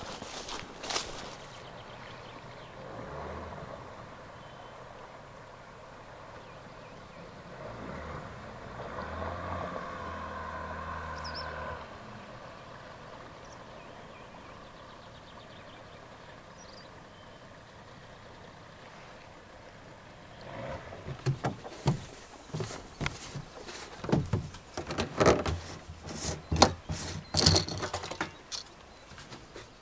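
Hollow knocks and clunks of plastic fuel cans being handled and shifted inside a homemade HDPE-plastic boat, many in quick succession over the last third. Before that, quiet outdoor background with a low hum that swells for a few seconds in the middle.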